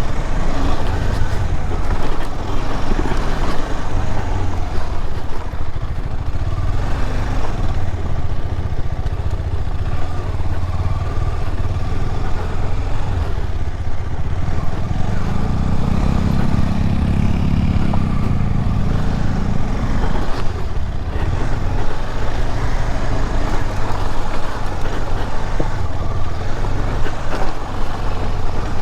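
KTM 250 Adventure's single-cylinder engine running steadily under way on a rough, rocky off-road track. The engine note rises for a few seconds about halfway through, then settles back.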